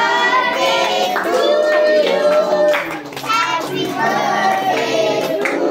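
A group of children singing a birthday song together as the cake is cut, with hand-clapping mixed in.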